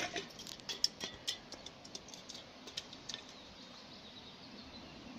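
Drink can rolling down a gravelly, stony slope: a sharp knock as it is let go, then a run of irregular clicks and rattles as it bounces over stones, thinning out and stopping after about three seconds.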